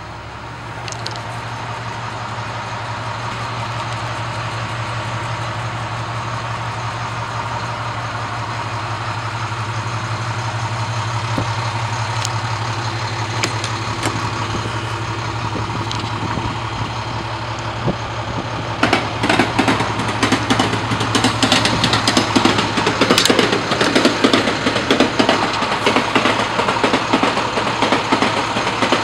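Diesel engine of an International 4300 ambulance idling with a steady low hum. From about two-thirds of the way through, a louder, rapid, uneven clatter sets in over the idle.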